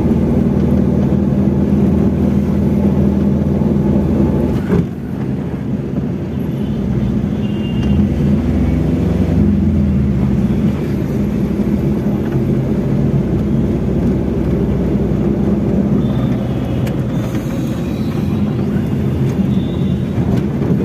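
Engine and road noise of a vehicle on the move, steady throughout, easing off briefly about five seconds in before picking up again.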